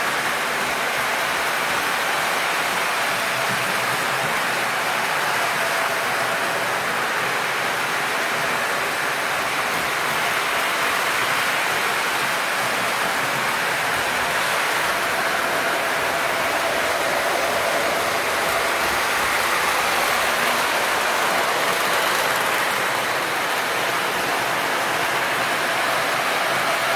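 O scale model trains running around the track: a steady rushing hiss of wheels and motors, with a faint steady hum underneath.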